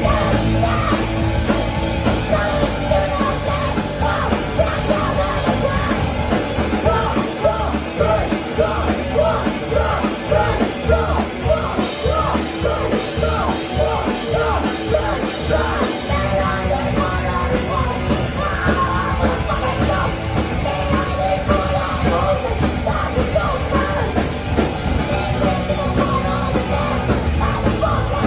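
Live rock band playing loud: electric guitar, bass guitar and drum kit, with a singer yelling into a microphone.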